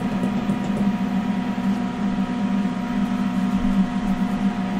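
K40 CO2 laser cutter switched on and idling, not cutting: a steady machine hum with a few faint steady whines above it.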